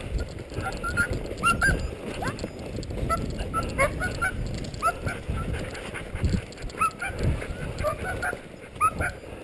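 Sled dogs yelping and whining in many short, high, rising yips, over a steady low rumble of movement on snow.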